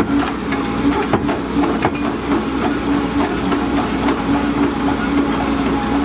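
Volvo EC210D excavator's diesel engine running steadily with a pulsing hum, and several sharp knocks and clanks in the first two seconds.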